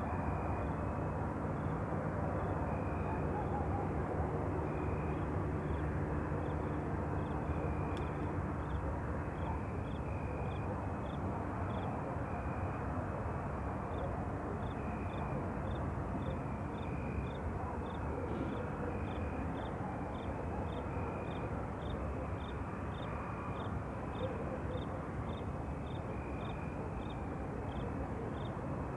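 Night ambience: a steady low rumble like distant traffic, with insects chirping in a regular rhythm, about two short high chirps a second over a slower, lower pulsing call.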